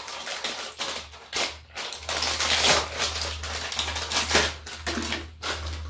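Plastic wrapper of a small food packet crinkling and rustling as it is handled and torn open, in short irregular bursts. A low steady hum runs underneath from about two seconds in.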